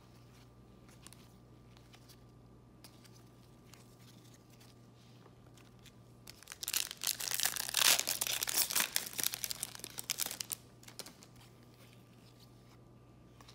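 A Panini Fortnite Series 2 foil trading-card pack being torn open and crinkled, loud crackling that starts about six seconds in and lasts about four seconds. Before it there are only faint ticks of cards being handled.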